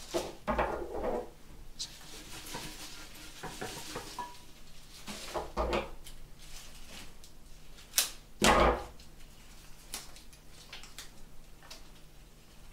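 Cut flower stems and foliage being handled: leaves and stems rustling, with a few sharp clicks, one of them a snip of florist scissors through a stem. The loudest is a longer rustle of leaves a little after the middle.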